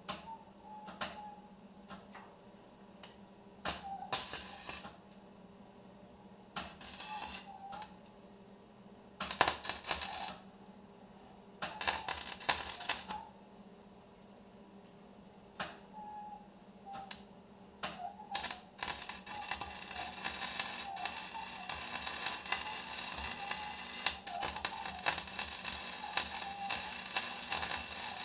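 Electric arc welder welding pipe: a run of short bursts of sizzle, then a longer continuous weld starting about two-thirds of the way in.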